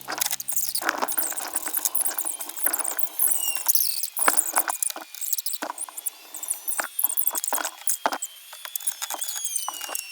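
Rapid, irregular clicking, scraping and squeaking of hands and a tool working at a cheap chainsaw's plastic cover, forcing it open. Low background music fades out in the first two seconds.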